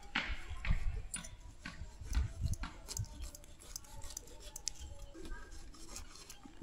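Knife cutting up a ripe jackfruit: a run of short, crisp cuts and taps, irregular, about two a second.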